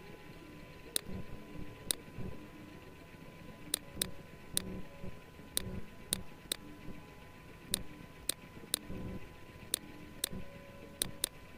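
Computer mouse button clicking: about fifteen sharp, irregular clicks, some coming in quick pairs like double-clicks, over a faint steady background hum.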